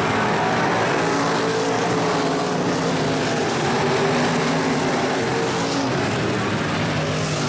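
IMCA stock cars' V8 engines running at racing speed around a dirt oval: several engines at once, their pitches overlapping and shifting slightly as the pack circles the track.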